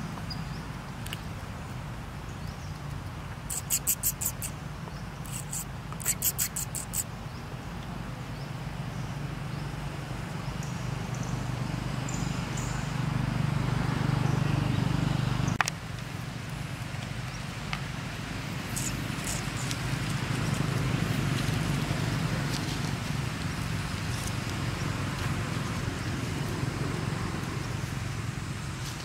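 Outdoor background with a steady low motor hum. Two short bursts of rapid clicking come about four and six seconds in, and a single sharp click comes about halfway through, after which the hum drops a little.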